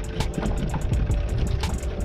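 Background music with a steady, quick beat, over the steady low rumble of a fishing boat's engine.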